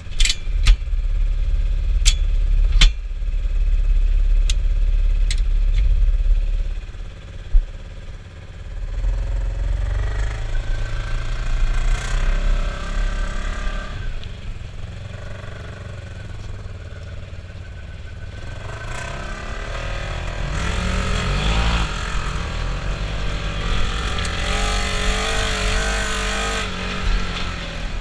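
Polaris RZR side-by-side engine running under way, with a heavy low rumble and several sharp knocks in the first few seconds. Later the engine revs up and down, rising and falling in pitch.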